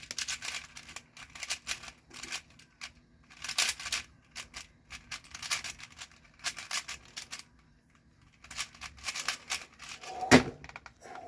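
A 4x4 speedcube being turned fast, its plastic layers clicking in rapid bursts with short pauses and a longer pause about eight seconds in. A single sharp slap about ten seconds in, typical of hands stopping a speedcubing timer at the end of a solve.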